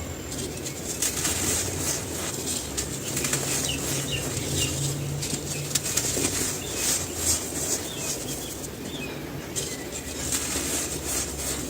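Dry cement chunks being crushed and crumbled by hand, a dense, continuous run of crackles and crunches.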